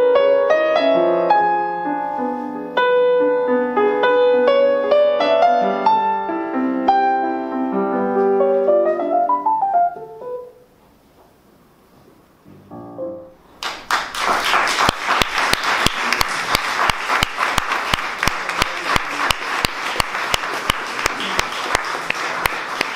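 Solo grand piano playing a slow classical piece whose last notes die away about ten seconds in. After a pause of about three seconds, the audience breaks into steady applause that lasts to the end.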